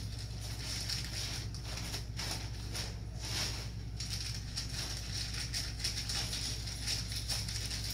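Soft rustling and light taps of game netting being handled and slid over a frame section, over a steady low hum.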